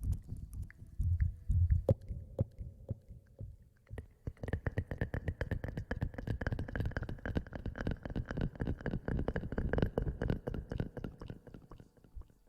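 Close-miked ASMR rustling and scratching: dense, rapid crackles right at the microphone, sparse at first and thickening about four seconds in.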